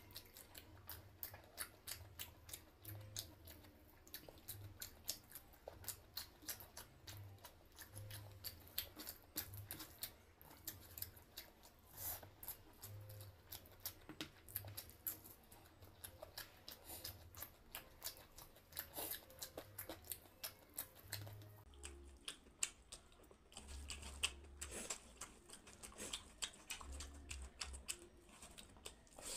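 Close-up eating sounds: fingers squishing and mixing rice with dal on a steel plate, and chewing. It is a steady run of many small, sticky, irregular clicks.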